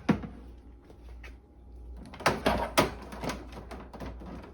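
Scattered sharp knocks and clatters, with a cluster of them about two to three seconds in, from glycol hoses and fittings being handled, over a low steady hum.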